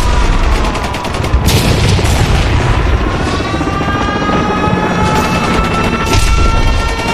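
War-alarm siren wailing, its pitch dipping slightly and then slowly rising, over a constant low rumble of explosions and gunfire. Sharp booms come about a second and a half in and again about six seconds in.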